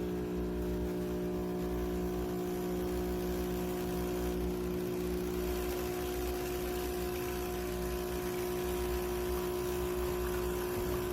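URintells Cuising espresso machine's 20-bar pump running steadily as it brews a long coffee, a constant humming buzz.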